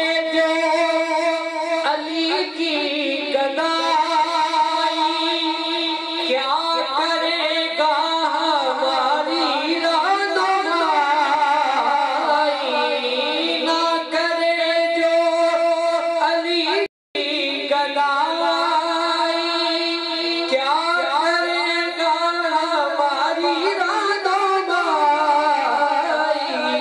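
A man singing an Islamic devotional recitation into a microphone, with long, wavering ornamented notes. The sound cuts out completely for a moment about 17 seconds in.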